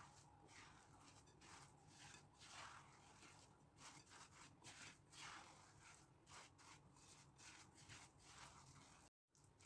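Very faint rubbing and scraping from mixing the basbousa batter, in short irregular strokes a few times a second. The sound drops out completely for a moment near the end.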